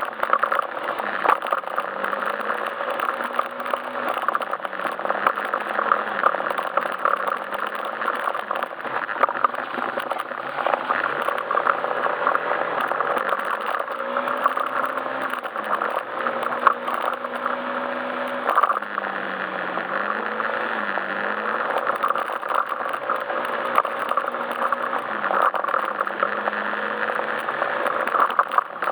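Yamaha Majesty S scooter's single-cylinder engine running under way, its note rising and falling every few seconds with the throttle, over steady wind and road noise with many small rattles and ticks.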